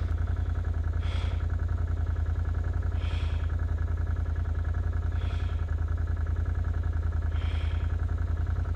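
ATV engine idling steadily, with a faint soft hiss about every two seconds.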